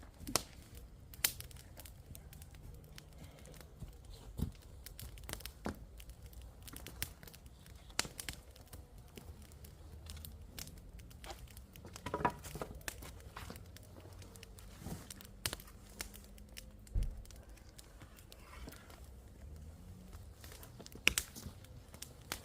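Scattered crackles and sharp snaps with rustling, from firewood and sticks being handled and broken.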